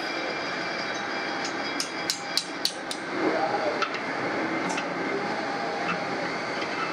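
A quick run of five or six sharp metal clinks about two seconds in, and one more a little later, as a cast-iron drill-table bracket is worked onto a pillar drill's steel column, over steady workshop background noise.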